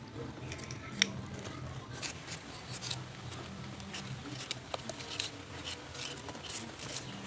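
Eating crab: irregular small clicks and crunches of shell being cracked and chewed, with one sharp crack about a second in.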